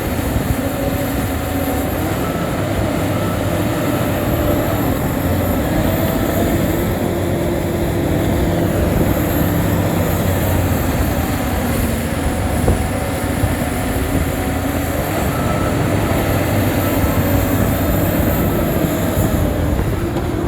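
Shantui bulldozer's diesel engine running loud and steady under work, with a few higher held tones coming and going over it.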